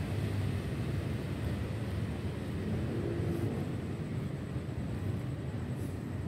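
Steady low rumble of distant city traffic, even and unbroken, with no distinct nearby events.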